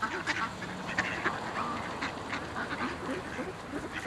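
A group of mallard ducks quacking, short calls scattered throughout.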